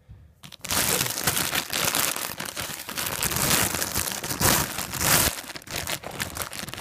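Plastic packaging crinkling and rustling as a canvas messenger bag is unwrapped and pulled out of it. The crinkling starts about half a second in and carries on with only a brief break near the five-second mark.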